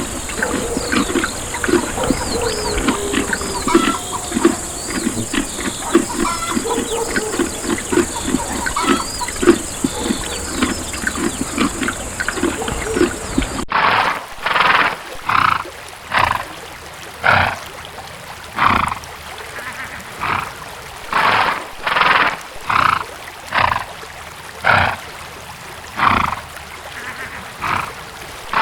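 Horse sounds in two parts. First comes a rapid clatter of sharp knocks with birds chirping over it. Then, after a sudden cut about halfway, a horse gives a run of breathy blasts, roughly one a second.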